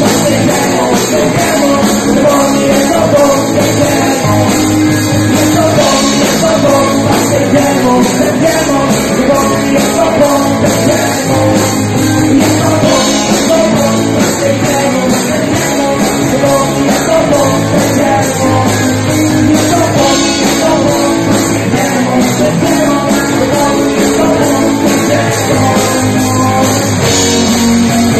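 Live rock band playing, with electric guitars, violin and drums, and a man singing.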